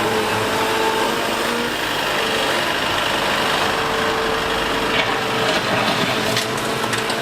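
A Liebherr A 910 compact wheel excavator's engine running steadily, with a few short knocks and scrapes in the second half.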